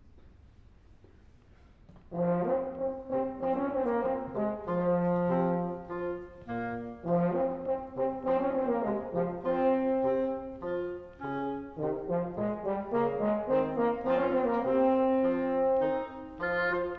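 Woodwind quintet of flute, oboe, French horn, bassoon and clarinet starting to play about two seconds in: a held middle note over shifting low bassoon and horn notes, with quick repeated notes above. It is a passage meant to grow more frightening as danger approaches in the story.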